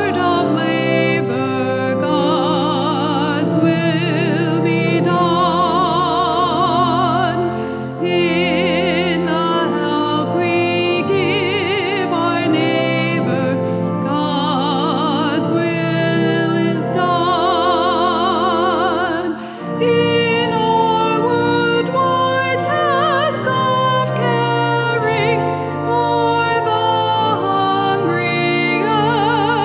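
Offertory hymn at Mass: a solo singer with wide vibrato over sustained accompaniment chords, with a brief break between phrases about two-thirds of the way through.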